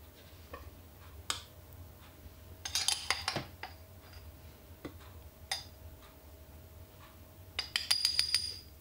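Metal teaspoon clinking against a glass spice jar and a glass baking dish as spice is scooped and tapped out. Scattered single light clinks, with busier runs of clinks about three seconds in and near the end, some leaving a brief glassy ring.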